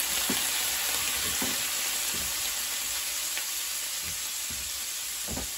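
Mushrooms sizzling in a hot skillet just after a splash of white wine vinegar has gone into the pan to deglaze it. It makes a steady hiss, with a few soft knocks.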